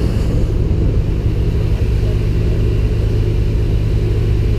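Engine of a 1998 Bayliner 2655 cabin cruiser running steadily under way, a loud, even low drone.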